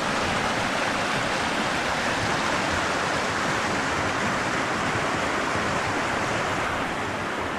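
Stream rushing steadily beneath a footbridge, a continuous even wash of flowing water.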